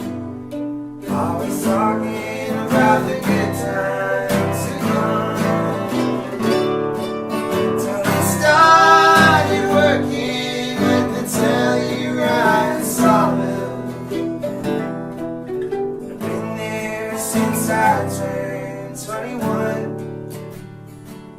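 Folk song played on acoustic guitar, strummed and picked, with a melody line rising over the guitar about a third of the way through.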